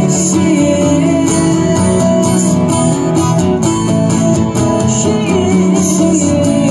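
Live acoustic folk-rock: two acoustic guitars strumming with a fiddle playing over them.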